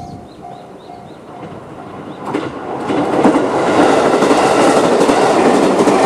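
Level crossing's electronic warning bell dinging about twice a second and fading out, then a JR 211-series electric train passes close by from about two seconds in. The train is loud and steady to the end.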